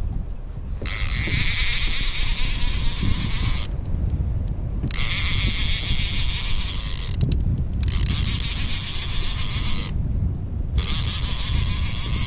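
Fishing reel being wound in four bursts of two to three seconds, with short pauses between, while a fish is played in, under a steady low rumble.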